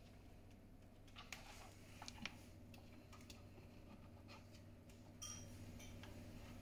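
Near silence: room tone with a faint steady low hum and a few soft, scattered clicks and ticks.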